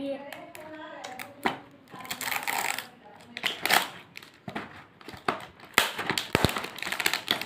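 Clear plastic wrap being peeled and pulled off a cardboard chocolate box: bursts of crinkling rustle with a few sharp clicks and snaps.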